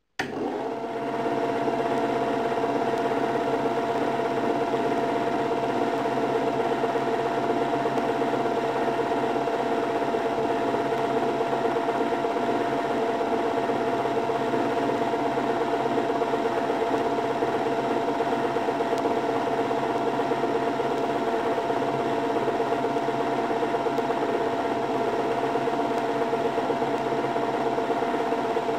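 A small motor running with an even mechanical whirring rattle that starts abruptly and holds a steady level and pitch.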